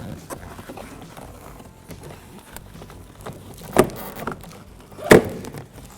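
Plastic door trim piece being pulled free and handled, with light scattered ticks and two sharp clicks, about four and five seconds in.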